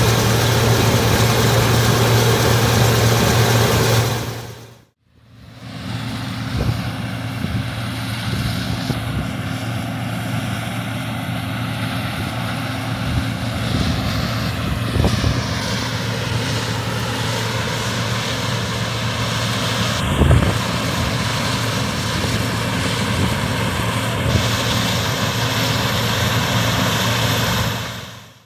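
Allis-Chalmers Gleaner F2 combine running steadily, its engine and machinery giving a loud, even drone. The sound fades out and back in about five seconds in, and there is a brief knock about twenty seconds in.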